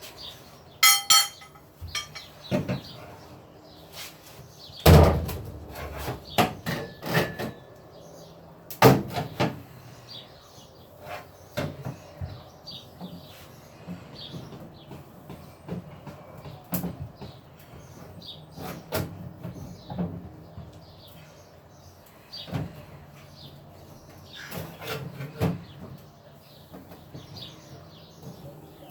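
Irregular knocks, thumps and metallic clanks of hand work on metal panels. There is a short ringing metal clink about a second in, and the heaviest thumps come about five and nine seconds in.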